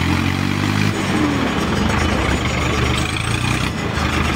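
Swaraj 855 tractor's diesel engine running steadily at idle.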